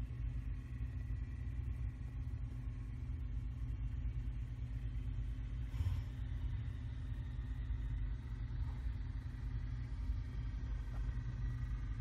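John Deere 210 garden tractor's single-cylinder engine running steadily under load as it plows snow, heard as a low steady hum. A brief bump sounds about six seconds in.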